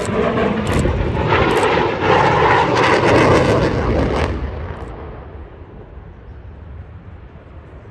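F-35A Lightning II's F135 turbofan jet engine, loud in a close pass, the noise dropping sharply about four seconds in and fading to a distant rumble as the jet moves away.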